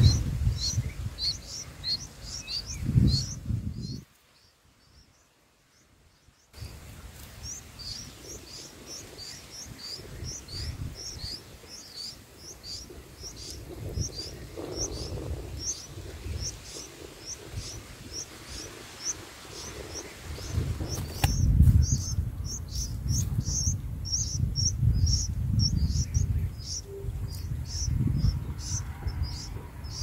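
Bulbul nestlings begging: a rapid series of short, high chirps, about three a second, growing denser and louder in the last third. The sound drops out to near silence for about two seconds, roughly four seconds in, and a low rumble lies underneath at the start and near the end.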